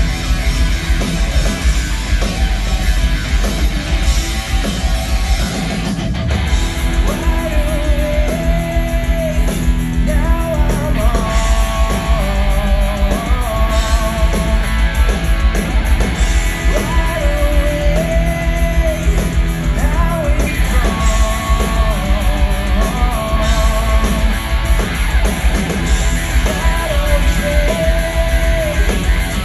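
Live hard rock band playing loud, with distorted electric guitar, bass and drums, heavy in the low end. A male lead vocal comes in about seven seconds in and carries on over the band.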